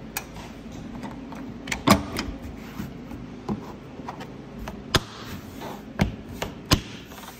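Plastic clips on a Tesla Model Y's black plastic cover panel snapping into place as a hand presses the panel down, about six sharp clicks roughly a second apart, the loudest about two seconds in and near the end. Each click is a clip seating home.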